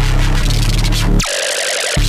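Hard techno (schranz) DJ mix: a driving kick and bass under dense, distorted synths. A bit over a second in, a quick falling sweep cuts the bass out, leaving a high ringing synth line, and the bass drops back in at the very end.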